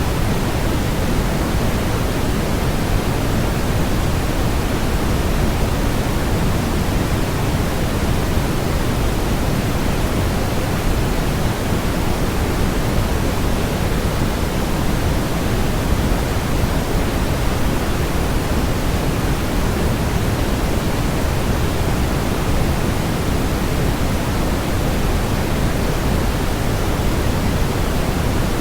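Steady synthetic noise from a white noise track: a continuous, even rushing hiss with no tones or events, heavier in the low end than the high, like pink noise.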